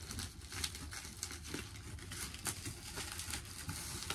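Paper and cardboard mailer packaging crinkling and rustling as it is unwrapped by hand, a dense run of quick crackles.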